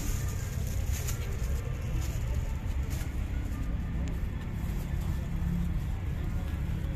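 Outdoor background: a steady low rumble with faint voices of people in the distance and a couple of soft clicks.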